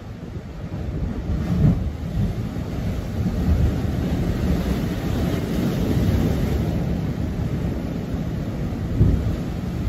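Strong wind buffeting the microphone: a gusty low rumble that swells and eases, with stronger gusts about a second and a half in and near the end.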